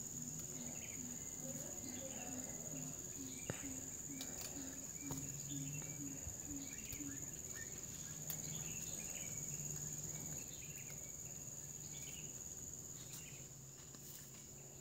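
Faint, steady high-pitched insect chorus, with a low pulsing sound about three times a second over the first half and scattered faint snaps as leaves are plucked from a shrub by hand.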